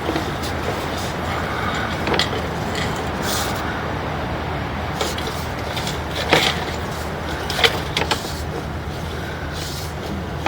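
Steady low engine hum, with scattered light clicks and knocks; the loudest knocks come about six and seven and a half seconds in.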